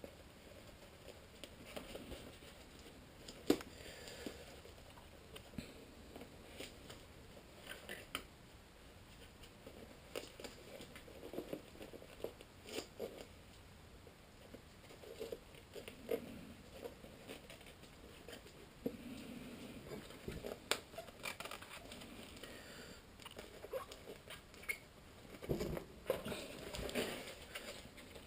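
Faint handling noise of drysuit material: rustling and crinkling with scattered small clicks and taps as the glued replacement foot is worked into place on the suit.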